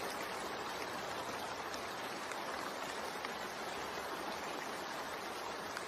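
Steady rain sound: an even hiss of falling rain without breaks.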